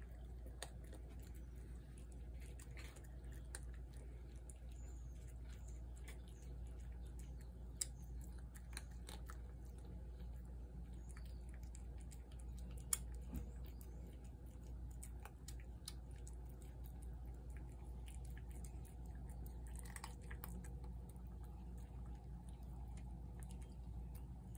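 Feral cats chewing and lapping wet cat food from plates, faint wet smacking and clicking with a couple of sharper clicks, over a steady low hum.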